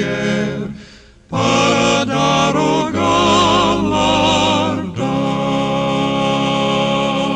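Choir singing a hymn with vibrato. The sound dips briefly about a second in, then comes back as long sustained chords.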